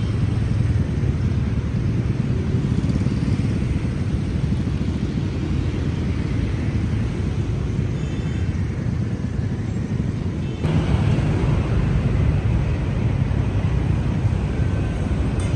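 Street traffic ambience: a steady low rumble of passing vehicles, motorbikes among them, with a sudden jump in level about eleven seconds in.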